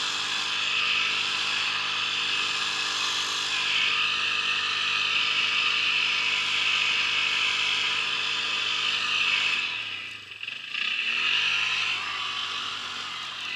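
ATV engine running hard under throttle while the quad spins doughnuts in the snow. About ten seconds in the throttle is briefly let off, and the revs drop and then climb again.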